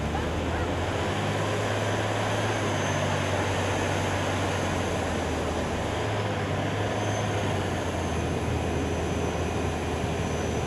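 Heavy military truck's diesel engine running under load as its wheels churn through a mud pit: a steady low engine drone under a constant hiss and splash of thrown mud and water.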